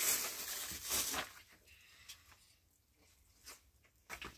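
Clear plastic bag rustling and crinkling as it is handled, loudest for about the first second. It then goes quiet apart from a few light taps and clicks.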